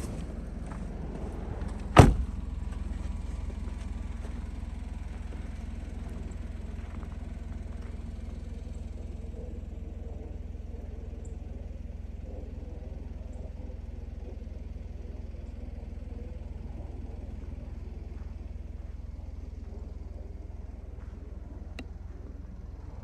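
Daihatsu Taft kei car running with a steady low rumble, with one sharp, loud thump about two seconds in and a faint tick near the end.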